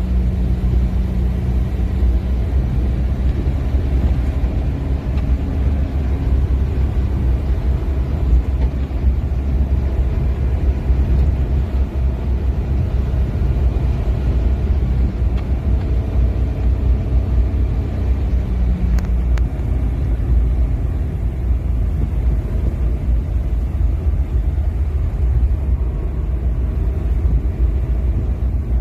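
Steady low rumble throughout, with a faint tick about two-thirds of the way through.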